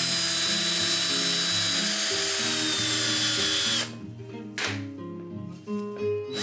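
DeWalt 20V cordless drill spinning a wheel against a small metal sewing-machine part to polish it: a steady whir with a high whine that sinks slightly, stopping a little before four seconds in, a brief spin-up shortly after, and starting again near the end. Background music plays underneath.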